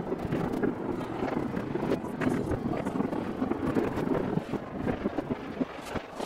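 Distant fireworks going off over a city: a dense run of muffled bangs and pops over a steady noisy background, with wind on the microphone.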